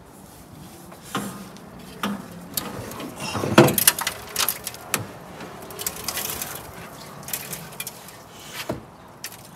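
A rusty metal fuel tank being worked loose and lifted out of a Porsche 914's front trunk: a run of scrapes, knocks and clunks of metal on metal, loudest about three and a half seconds in.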